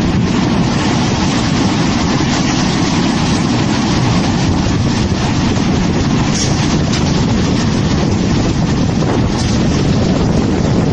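Tornado winds at close range: a loud, steady rush of wind buffeting the microphone, heaviest in the low range.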